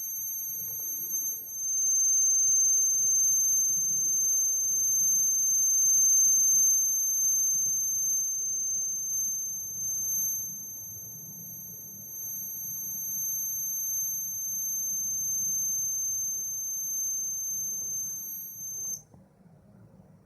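Alarm buzzer of an MSP430 microcontroller timer alarm clock sounding one continuous, steady high-pitched tone, signalling that the set interval has run out. Its loudness rises and falls, and it cuts off about a second before the end.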